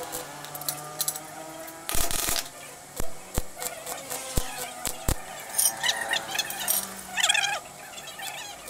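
Stick welding on small square steel tubing: a short burst of arc crackle about two seconds in, followed by several sharp metallic knocks, over background music.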